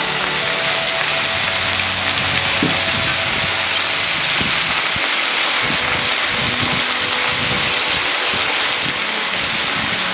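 Diluted red chilli paste with water sizzling in hot oil in a nonstick pan, a steady hiss that starts suddenly as the watery paste hits the oil. A wooden spatula stirs through it.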